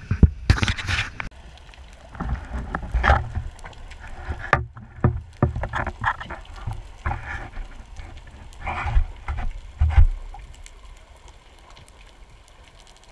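Water sloshing and rushing around an underwater camera in irregular bursts for about ten seconds, then settling to a quieter steady underwater background.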